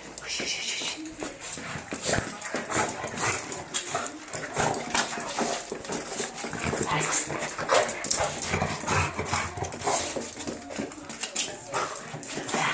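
French bulldog snoring.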